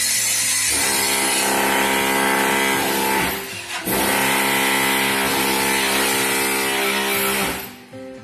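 Background music: sustained chords over a bright hiss, dropping away briefly about three seconds in and again near the end.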